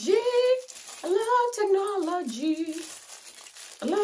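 A woman singing a short tune in two phrases, with long held notes that slide in pitch, then a brief pause near the end.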